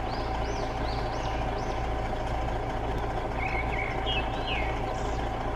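Diesel excavator engine idling steadily, with a few birds chirping in the background.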